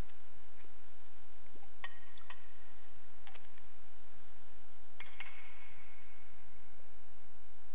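Chalice and other altar vessels handled on the altar after communion: a few light clinks around two and three seconds in, then a sharper clink about five seconds in that rings on for about a second.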